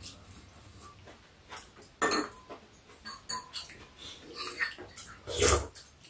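People eating at a table: chewing and slurping mouth sounds with spoons and chopsticks clicking against bowls, in short irregular bursts, the loudest about two seconds in and again near the end.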